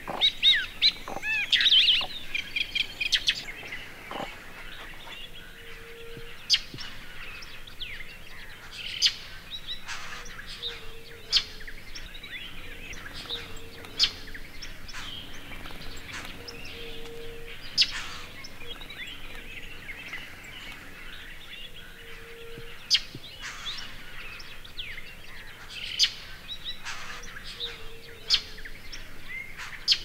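Many wild birds calling and chirping. The calls are busiest and loudest in the first few seconds, then come as scattered sharp chirps every few seconds, with a low repeated note underneath.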